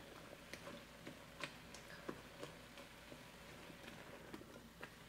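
Faint, irregular clicks and scrapes of a wooden spoon stirring ground turkey and chopped vegetables in a Ninja Foodi pressure cooker's inner pot.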